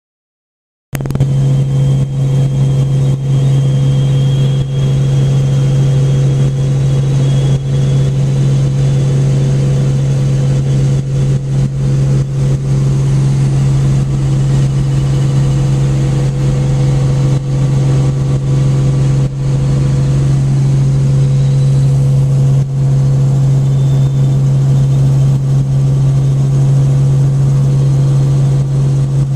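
Helicopter cabin noise in flight: a loud, steady low drone of the engine and rotors that starts abruptly about a second in.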